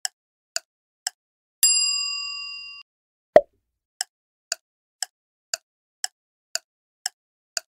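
Quiz countdown sound effect: clock ticks about two a second, then a bell ding about a second and a half in that rings for about a second and stops abruptly as the ticking ends. A single sharp pop follows, the loudest sound, and the ticking starts again.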